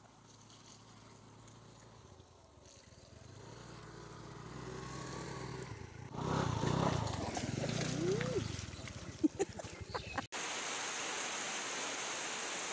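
A faint low hum, then louder rustling noise with a few sharp knocks. After a sudden cut about ten seconds in comes the steady hiss of heavy rain falling.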